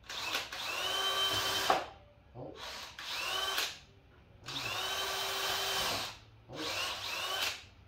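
Cordless drill running in four short bursts, each a second or so, its motor whine rising in pitch as it spins up. It is fastening the corner of a 2x6 rim-joist frame.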